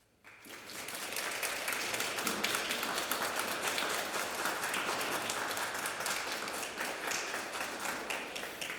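Audience applauding: many hands clapping that swells within the first second, holds steady, then dies away at the end.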